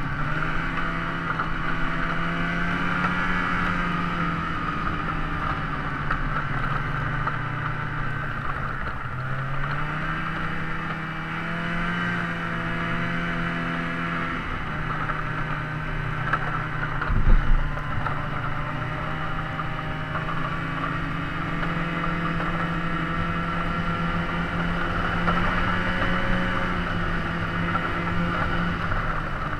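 An engine running steadily, its pitch dipping and rising a little over time, with one short loud knock about seventeen seconds in.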